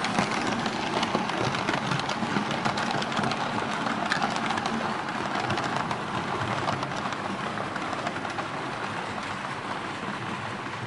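Märklin H0 model train, a Ludmilla diesel with its wagons, running on metal M-track: a steady rattling clatter of small clicks from the wheels over the track, growing a little fainter from about halfway through as it moves away.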